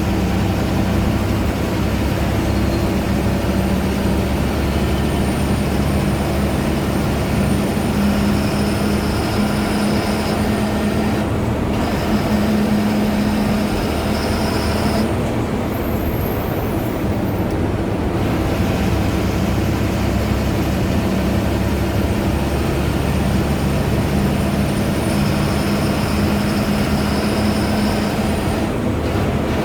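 Ashok Leyland BS4 bus's turbocharged diesel engine running under way, with a steady low engine hum. A high turbo whistle rises slowly and fades twice over it.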